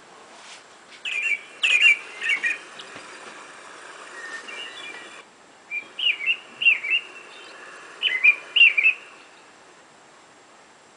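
A songbird singing, short bursts of quick chirping notes coming three times: about a second in, about six seconds in and about eight seconds in.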